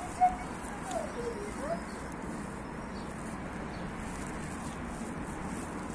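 Steady outdoor background noise, with a few short gliding calls in the first two seconds.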